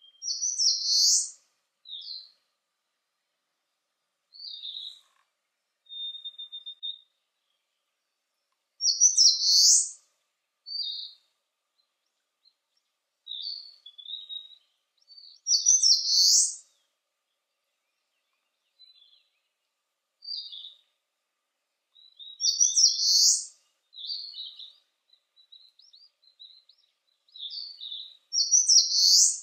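Eastern crowned warbler singing: a short, loud, high phrase repeated five times, about every six to seven seconds, with fainter high chirps in between.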